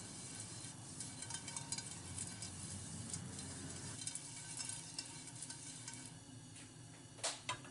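Silicone pastry brush spreading a thin film of oil over a hot nonstick pan: faint sizzling with light brushing crackles that ease off about six seconds in. Two short, sharper sounds come near the end.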